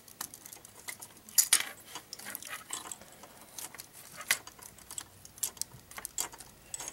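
Hard plastic Gundam model-kit parts, the Giant Gatling Gun and the figure's hand, clicking and scraping as they are turned and pressed together by hand. A string of small sharp clicks, loudest about a second and a half in and again after four seconds.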